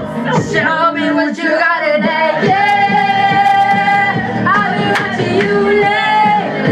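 A pop song plays, with a lead vocal holding long sustained notes over the backing track. One held note begins about two and a half seconds in, and another comes near the end.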